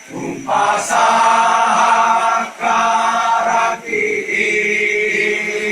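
A choir singing in Toraja badong style, a slow chant of voices holding long notes together. The voices breathe between phrases about two and a half seconds in and again near four seconds, then hold a new note.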